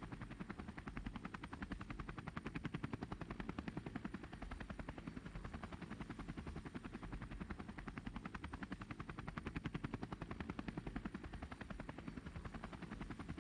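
Aircraft running steadily, its sound a rapid, even beating pulse.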